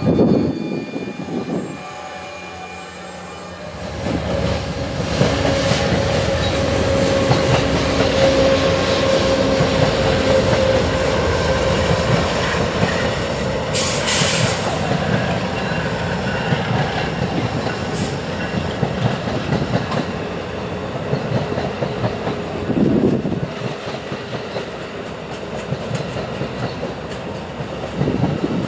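Train rolling past, its wheels running over the rails with a steady squeal of wheels on the rails through the middle. About halfway through there is a brief sharp hiss.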